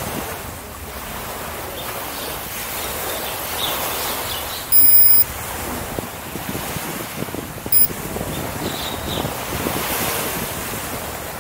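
Steady wind noise rushing over the microphone. Partway through, a loud electronic beep sounds for about half a second, and a second, shorter beep follows about three seconds later.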